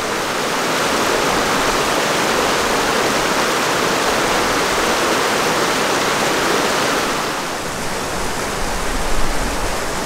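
Small mountain creek tumbling over rock cascades and little waterfalls: a steady, full rush of water that eases slightly near the end.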